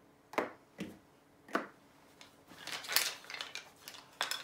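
Letters being pulled off a whiteboard and put down: a few separate light clicks and clacks, then a short stretch of clatter and rustling, and one more click near the end.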